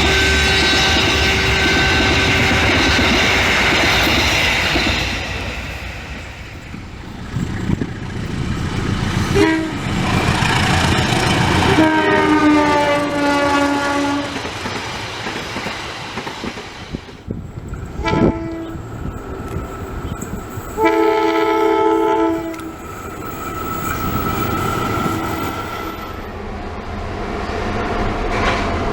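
Railway locomotive horns, the Semboyan 35 horn signal, sounding a series of blasts over the rumble and clatter of a train on the rails. A long steady blast opens, a later blast drops in pitch as a train passes, and shorter blasts follow near the middle and the end.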